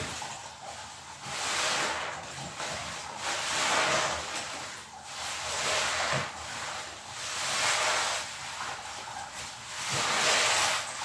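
A sponge soaked in soapy lather is squeezed and wrung by hand again and again. Each squeeze gives a swell of wet, fizzing foam noise, about every two seconds.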